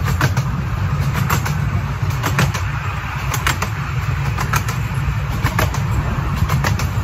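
Ride in an open carriage of a miniature railway train running along its track: a steady low rumble with frequent irregular clicks and clatter.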